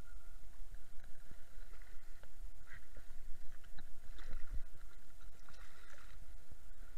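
A hooked striped bass thrashing at the surface beside the rocks as it is landed by hand, sending up short bursts of splashing water several times, over a steady low rumble.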